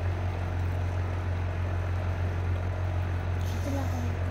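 Sokany electric citrus juicer running with a steady low hum as an orange half is pressed down onto its spinning reamer, with a brief hiss about three and a half seconds in.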